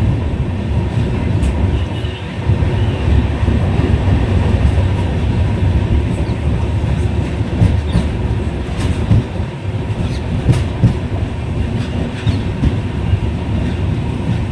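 Moving passenger train: a steady heavy rumble of wheels on the track, with scattered sharp clicks.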